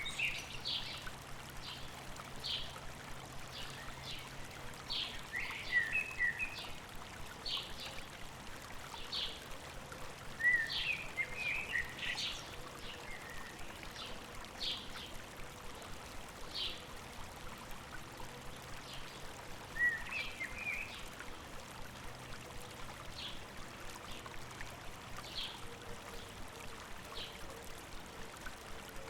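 A river or stream running steadily, with birds calling over it: a short high note repeated every second or two, and a few brief bursts of twittering, the loudest about six, eleven and twenty seconds in.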